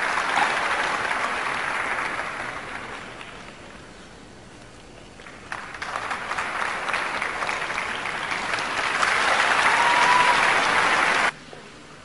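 Arena audience applauding after a figure skating program. The applause fades a few seconds in, swells again to its loudest near the end, then cuts off suddenly.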